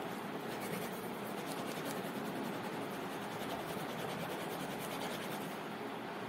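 A pen scratching and rubbing across paper as it writes, over a steady hiss.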